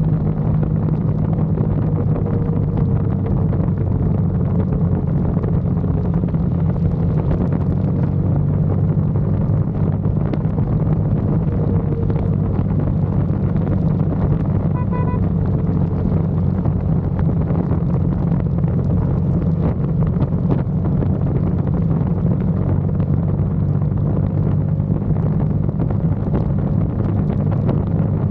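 KTM RC single-cylinder motorcycle engine running at a steady speed, an even low exhaust drone with no revving.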